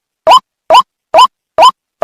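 White-breasted waterhen call, played as a lure loop: short rising notes repeated evenly about twice a second, with silence between them.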